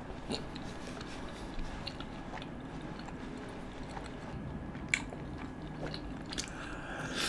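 Close-miked chewing of a mouthful of bread dipped in butter chicken gravy. Small mouth clicks come now and then, with one sharper click about five seconds in.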